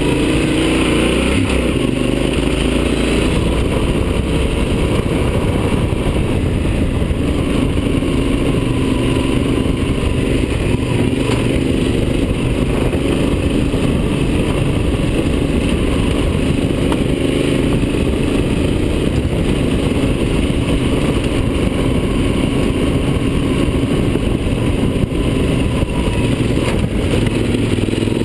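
Yamaha Super Ténéré's parallel-twin engine running steadily, its pitch rising and falling a little, heard from on the bike over a dense low rumble.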